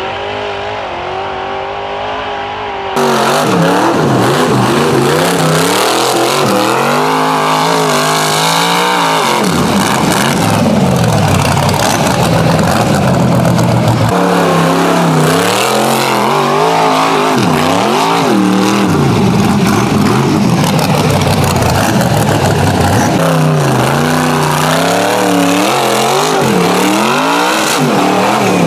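Off-road rock bouncer buggy's engine revving hard, its pitch rising and falling again and again as the throttle is worked on and off. The sound steps up sharply in loudness about three seconds in.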